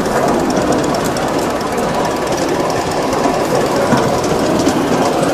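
Miniature ride-on railway train running along the track, heard from aboard: a loud, continuous rattle and clatter of wheels on the rails.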